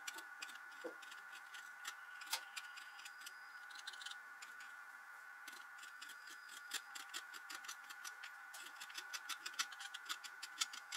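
Hand tool scraping and picking hardened carbon deposits off the head of a Kawasaki Z750FX-II engine valve, making faint, irregular clicks and scratches that come quicker near the end.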